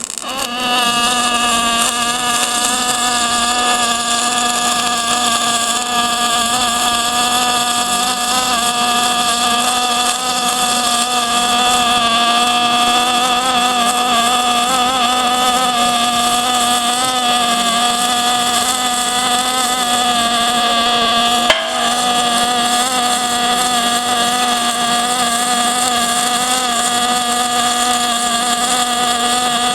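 A steady machine drone holding one pitch with its overtones, with a single sharp click about three quarters of the way through.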